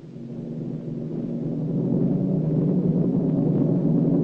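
A low rumble that swells steadily louder over the first couple of seconds and then holds.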